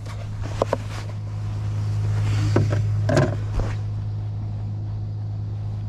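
A few plastic knocks and rattles as a fish and a yellow plastic fish-measuring board are handled in a small boat: two light knocks just under a second in, and a louder cluster around the middle. A steady low hum runs underneath.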